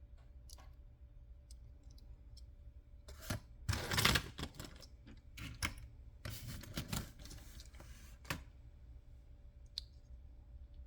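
Toy vehicles being handled: scattered light clicks and knocks, with two short bouts of clattering and rustling, the first and loudest about three to five seconds in and the second around six to seven and a half seconds. A few lone clicks follow, over a faint steady hum.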